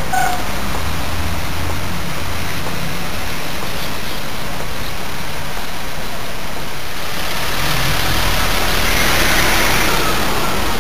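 City street traffic: a steady hum of cars and vans with the hiss of wind over a handheld camera microphone. The noise swells from about seven seconds in as a vehicle passes.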